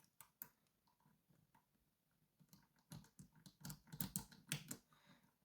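Faint light clicks and rattles of a key turning the rotating discs of an Abloy Classic disc-detainer lock, a couple near the start and a cluster in the second half.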